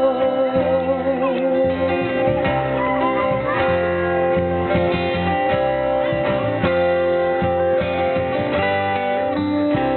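Acoustic guitar and bass guitar playing the instrumental closing bars of a folk song after the last sung line, with held notes ringing over a steady bass line.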